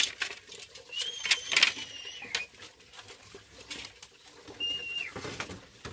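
Hollow bamboo poles knocking and clacking against each other as they are fitted into a bamboo frame, in a cluster of sharp knocks about a second in. There are also two high whistling tones, one about a second in and a shorter one near the end.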